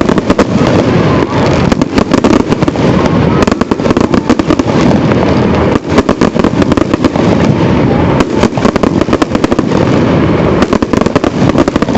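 Fireworks display going off in a continuous barrage: many rapid bangs and crackles overlapping, with no pause.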